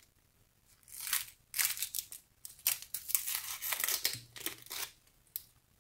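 Dry outer skin of a white onion being peeled and torn off by hand: a run of short crackling, papery tearing sounds from about a second in, stopping shortly before the end, with one last small click.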